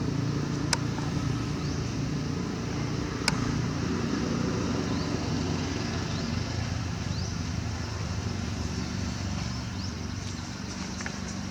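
A steady low engine hum, as of a motor vehicle running, with two sharp clicks, the first about a second in and the second about three seconds in.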